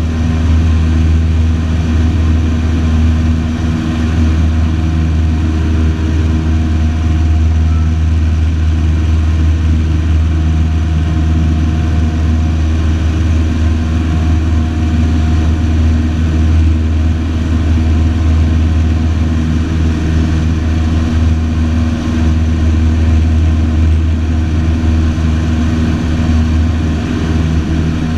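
Single-engine light aircraft's engine and propeller running steadily, heard from inside the cockpit in flight.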